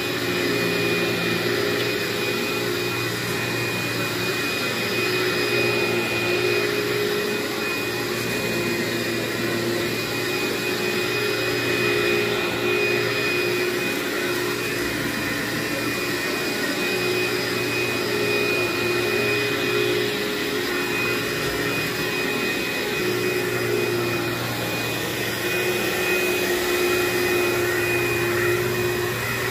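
Upright vacuum cleaner running steadily while pushed back and forth over carpet, its motor tone shifting slightly in pitch now and then as it moves.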